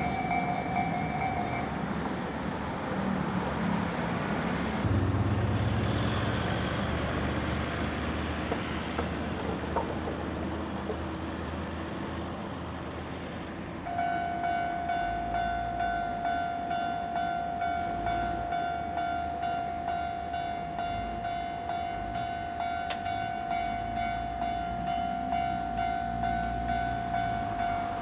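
A train passing a Japanese level crossing, its wheels and motors rumbling, while the crossing warning bell's ringing stops about two seconds in. About halfway through, the crossing warning bell starts again, a steady repeated ding about one and a half times a second, over the rumble of a train.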